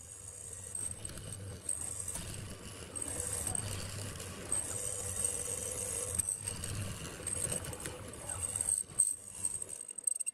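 Benchtop hollow-chisel mortiser running with a steady high whine while its square chisel and auger are plunged into a pine board, boring out a mortise with a chattering, rattling cut. There are a few louder knocks near the end.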